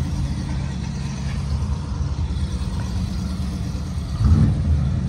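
Motor vehicle engine idling with a steady low rumble, briefly swelling louder about four seconds in.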